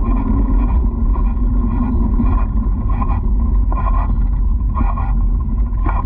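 Loud, steady low rumble of wind and movement noise on a moving action camera's microphone, with fainter brief sounds about once a second from about two seconds in.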